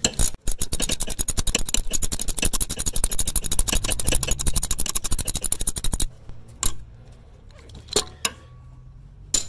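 Socket ratchet clicking rapidly and evenly as it backs out a loosened rear brake caliper bolt. The clicking stops about six seconds in, followed by a few separate clicks.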